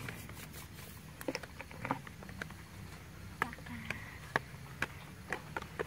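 Small wood fire crackling under crabs and snails grilling on a wire rack: sparse, irregular sharp clicks and light taps over a low steady background.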